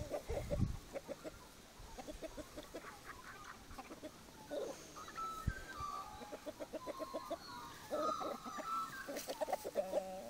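Chickens clucking: runs of short, quick clucks, with a few longer, higher calls in the second half.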